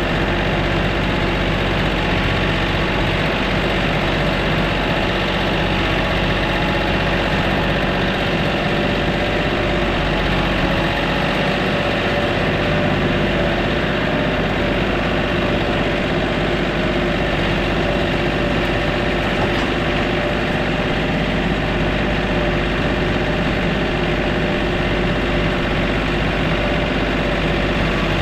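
An engine idling steadily at an even level.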